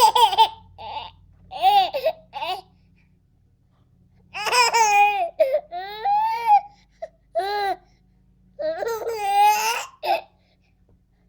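Baby laughing in high-pitched squealing bursts: a few short laughs, a pause of about two seconds, then longer, drawn-out squeals of laughter.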